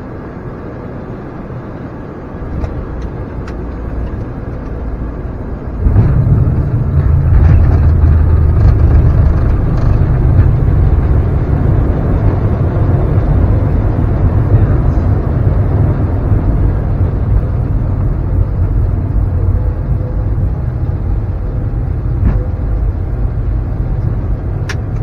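Cockpit noise of an Embraer E175 rolling out on the runway just after touchdown. About six seconds in it turns suddenly much louder and deeper as its GE CF34 engines spool up in reverse thrust, then the roar eases off slowly as the jet slows.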